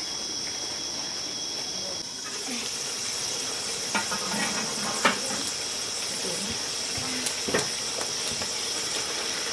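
A steady, high-pitched chorus of insects, with a few sharp clicks and knocks about four, five and seven seconds in.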